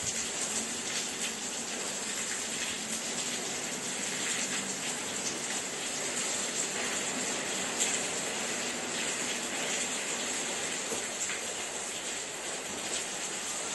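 Steady rain falling on wet ground, an even continuous hiss of drops.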